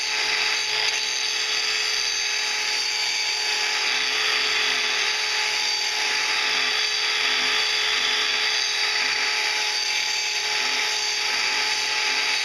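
Angle grinder running steadily with its disc against a stainless-steel rod, grinding the handle of homemade pliers, a constant motor whine over a harsh grinding hiss.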